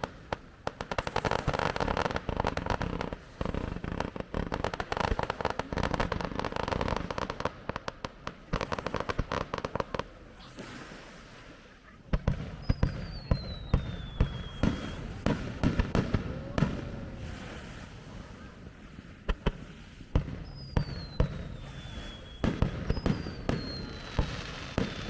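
Fireworks display finale: a dense run of crackling bursts for about the first ten seconds, then separate bangs of shells bursting. Three high whistles that fall in pitch sound in the second half.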